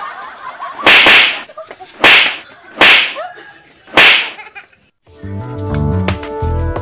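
Four loud slaps, each with a short whooshing smack, about one a second, then electronic music with a steady beat starts about five seconds in.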